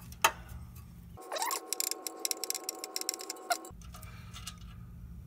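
Hand ratchet clicking as a loosened exhaust manifold bolt is backed out: a couple of separate clicks, then a quick run of rapid clicks lasting about two seconds.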